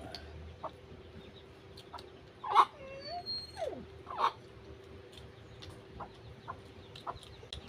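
Domestic chickens clucking, with the loudest calls about two and a half and four seconds in.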